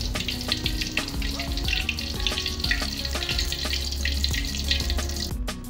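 Hot cooking oil in a wok sizzling and crackling densely as fried tempe drains in a perforated skimmer held above it; the sizzle cuts off abruptly near the end.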